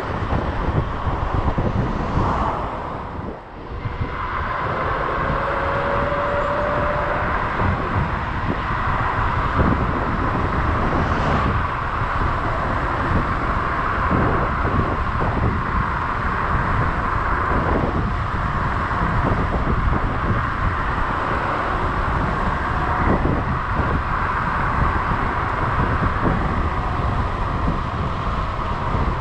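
Wind rushing over the microphone together with tyre and road noise from an electric scooter ridden fast along an asphalt road. The noise dips briefly about three seconds in.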